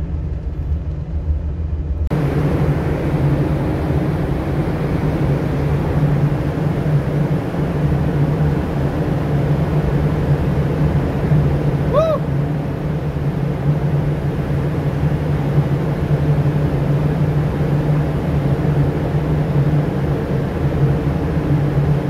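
A lifeboat's inboard diesel engine running steadily. It is heard close and boomy for the first two seconds, then shifts abruptly to a fuller, more open running sound. About halfway through, a single short high tone rises and falls.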